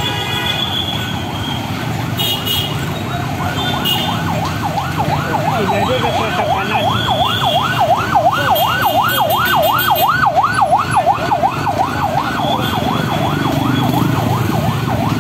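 An emergency vehicle's siren in a fast yelp, its pitch swinging up and down about three to four times a second. It comes in a few seconds in, is loudest in the middle and fades near the end, over steady background noise.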